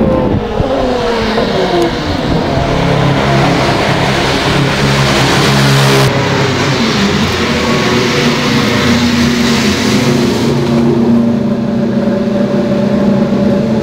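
Honda HSV-010 GT500 race car's 3.4-litre naturally aspirated V8 running loud as the car comes past close by, its note falling in pitch in the first couple of seconds. Through the later part it holds one steady note, which drops away at the very end.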